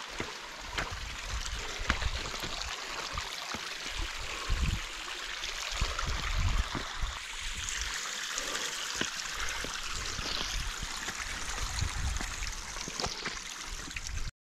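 Water trickling and running over a wet rock slab, a steady hiss, with scattered sharp clicks and low thumps of footsteps on the rock. The sound cuts off suddenly just before the end.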